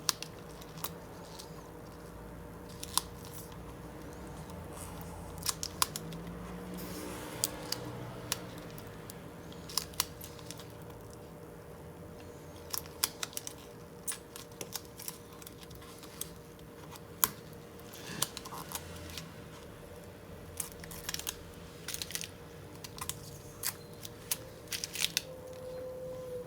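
Irregular sharp clicks and snips of small handwork on a laptop screen panel while its polarizing film is being replaced, over a faint steady hum.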